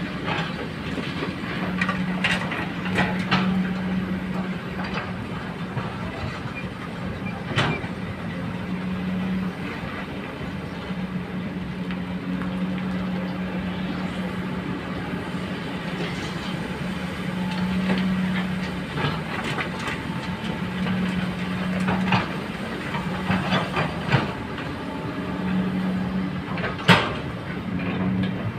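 Hydraulic excavator running under load: a steady engine drone with a pitched hum that swells and fades as the hydraulics work, and irregular metallic clanks and knocks, the loudest near the end.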